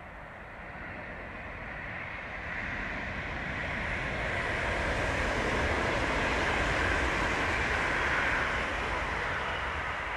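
A train passing by, the rushing rumble of its wheels on the rails building over several seconds to its loudest past the middle, then starting to fade near the end.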